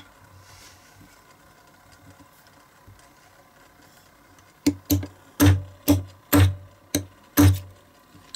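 A small hammer tapping a steel punch seven times, about two taps a second, starting about halfway through. The punch is working on the old diecast metal body of a Matchbox Land Rover model, gently straightening damage because the metal is brittle.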